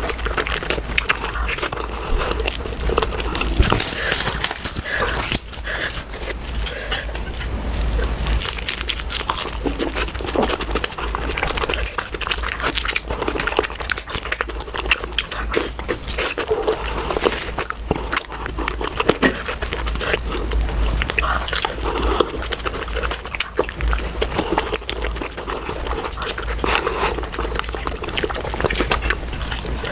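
Close-miked eating of puri with mutton curry: continuous chewing and wet mouth sounds, dense with small clicks, with no pauses.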